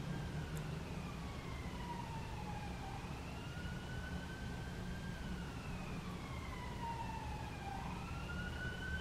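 Emergency vehicle siren wailing, its pitch sweeping slowly down and back up over several seconds.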